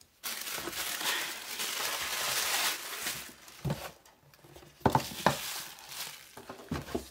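Tissue paper rustling and crumpling for about three seconds as it is pulled off, then several light knocks and rustles as the cardboard box with its bubble-wrap lining is handled.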